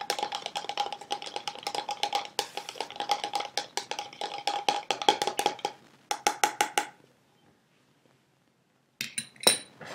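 A stirring stick clicking rapidly against the inside of a plastic cup while oil is stirred, with a thin steady ringing tone under the taps. It stops about seven seconds in, and a few knocks follow near the end.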